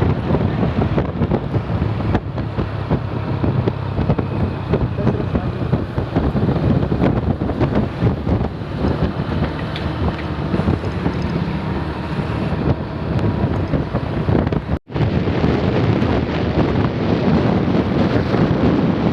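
Wind buffeting the microphone over the steady low running of a vehicle engine, with a split-second break in the sound near the end.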